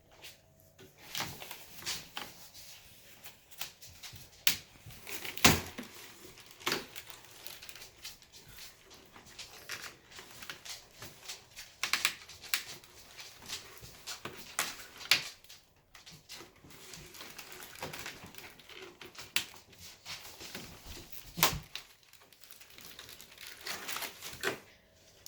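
Packaging being handled while a new bicycle is unboxed: crinkling and rustling, with irregular sharp clicks and knocks throughout, the loudest about five seconds in and again near the end.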